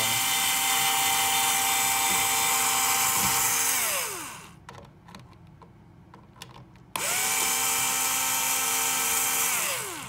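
Cordless drill-driver backing out the mounting screws of a wall dimmer switch: two runs of steady motor whine, the first about four seconds long and the second about three, each winding down in pitch as it stops.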